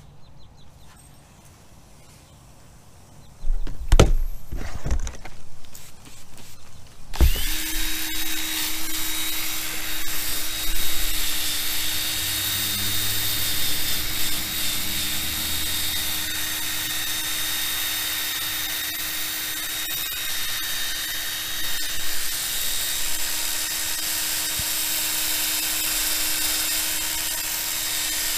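A few knocks of handling, then about seven seconds in an electric drill spinning a 3M restoration sanding disc starts and runs at a steady speed, with an even motor hum and a hiss.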